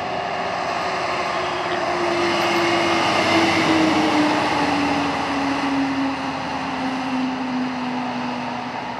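Engine noise of a vehicle passing. It swells to a peak about three to four seconds in and then fades, with a drone that falls slowly in pitch throughout.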